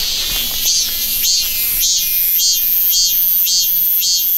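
A cicada singing: a loud, high-pitched buzzing song pulsing about twice a second over a steady high hiss.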